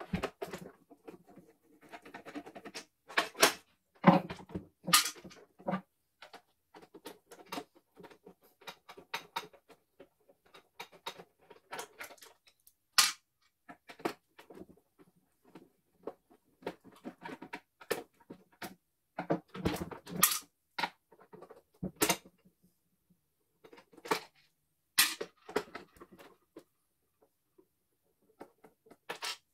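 Screwdriver and plastic casing parts of a CNY E900 embroidery machine clicking and knocking irregularly as the housing is unscrewed and taken apart; no motor runs, as the machine is dead.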